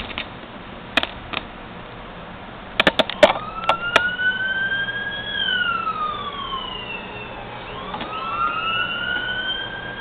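An emergency vehicle siren wails, rising and falling slowly in pitch, from about three seconds in. Just before it, a few sharp clicks and knocks come from a graphics card being handled against a metal computer case.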